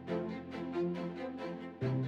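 Background music with a steady beat and sustained pitched notes, the bass line changing near the end.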